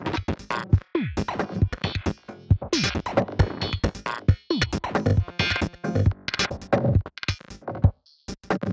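Electronic music playing from Reason: a drum-machine beat with synthesizer parts, many hits sliding down in pitch, run through Reason's SSL mixer channel as its knobs are turned. The sound drops out briefly about eight seconds in.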